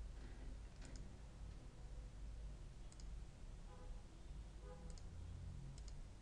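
Computer mouse clicks: a few single sharp clicks spaced a couple of seconds apart, two of them close together near the end, over a low steady hum.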